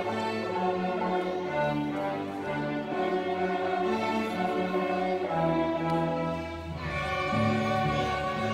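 String orchestra of violins and cellos playing, bowing held chords that change about every second, with a brief thinning about seven seconds in before the next chord.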